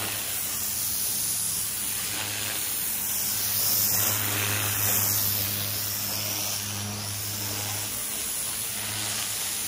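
Promac M36 pressure washer's high-pressure jet hissing steadily onto concrete, with a steady low hum from the machine underneath; the pressure is turned down to about 150 bar. The spray gets briefly louder around four to five seconds in.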